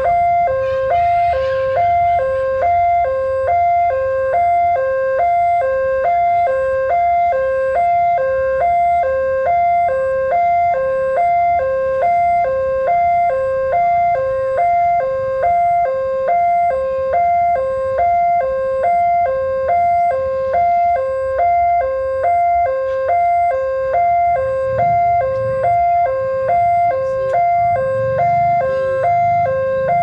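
Railway level-crossing warning siren sounding from its horn loudspeaker: a fast electronic two-tone signal switching steadily back and forth between a lower and a higher pitch. It is the sign that the crossing is closed for an approaching train.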